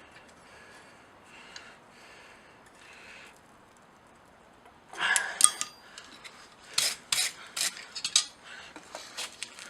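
Steel round bar being bent with metal tools: faint for the first few seconds, then from about five seconds in a string of sharp metal-on-metal clinks and scrapes, about eight strikes in all.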